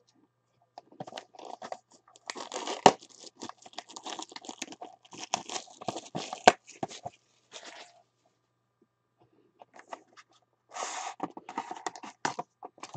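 Clear plastic shrink wrap being torn off a sealed trading-card box and crinkled in the hand, a dense crackling with sharp snaps. After a pause it comes again near the end as the box is opened.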